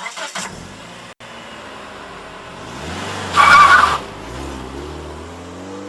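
A car engine revving, rising in pitch, with a short tyre squeal about three and a half seconds in.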